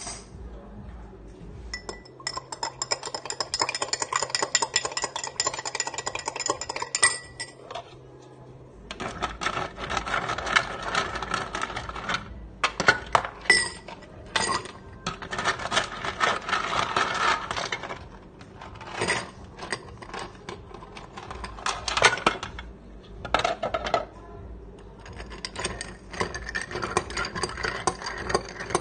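Ice cubes going into a cut-glass mixing glass and being stirred with a metal bar spoon: rapid clinking of ice and metal against glass, coming in runs with short pauses between.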